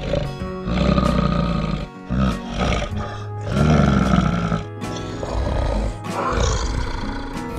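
A big cat calling in several long, rough, low calls with short breaks between, over background music with sustained notes.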